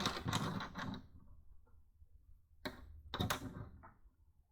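Plastic LEGO pieces clicking and rattling as they are handled and fitted together: a clatter in the first second, then a few separate sharp clicks.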